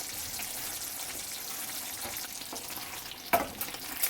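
Thick chicken gravy sizzling in the hot pan just after the heat is switched off, a steady hiss. One sharp clack sounds a little over three seconds in.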